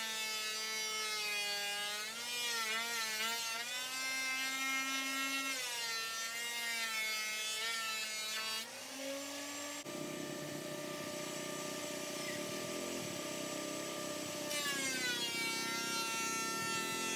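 Wen benchtop thickness planer running: a steady motor whine whose pitch sags and wobbles while the cutterhead takes a board. The pitch rises when the board clears about halfway through, a rougher rushing noise joins for several seconds, and the pitch drops again near the end as the next pass starts cutting.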